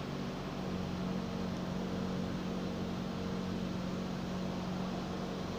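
Boeing 777-200ER's two General Electric GE90 engines at takeoff power during the takeoff roll, a steady rumble with a steady hum.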